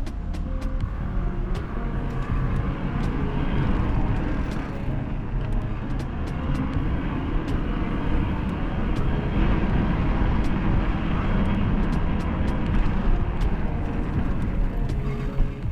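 Steady rushing wind and ride noise on the microphone of a moving bicycle, heaviest in the low end. Background music is faint near the start and end.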